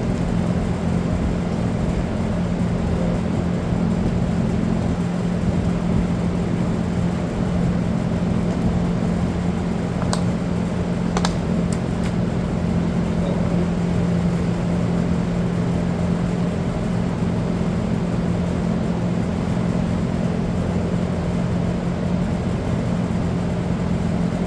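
A steady low mechanical hum, even in level throughout, with a few short clicks about ten and eleven seconds in.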